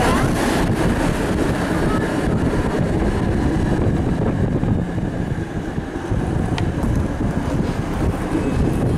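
1951 PCC streetcar running along its route, heard from inside the car: a steady rumble of the car and its wheels on the rails.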